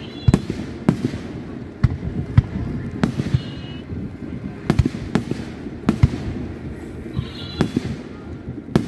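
Aerial firework shells bursting in a display: about ten sharp bangs at irregular intervals, over a continuous low rumble.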